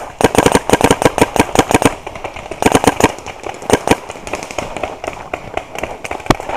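Proto Rail paintball marker firing fast strings of shots, about eight a second for the first two seconds, then shorter bursts and scattered single shots.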